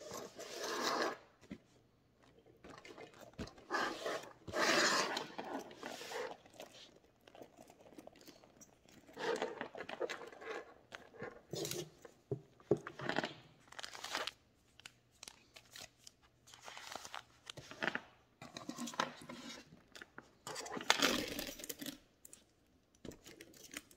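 A quilted leather handbag with a metal chain strap being handled: the leather rustling and creaking as it is turned and items are slipped into its front pocket, in irregular bursts with occasional sharp clicks.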